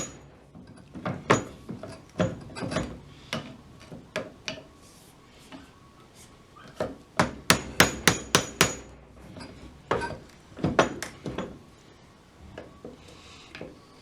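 Sharp hammer blows, struck to punch the old cracked handle out of a True Temper half hatchet's head. They come in irregular groups, with a quick run of about eight strikes about halfway through, then a few more and then only faint knocks near the end.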